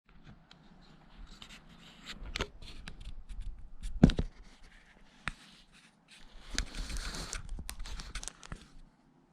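Close-up handling noise as a camera is set in place: clicks, scraping and rustling against the microphone, with one sharp knock about four seconds in and a longer stretch of rustling near the end.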